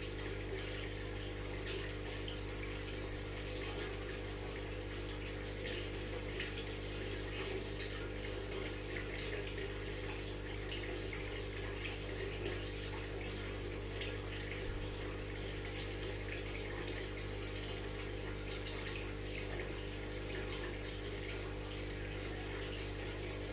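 Aquarium water trickling and bubbling steadily with a continuous fine crackle, over the steady low hum of the tank's pump.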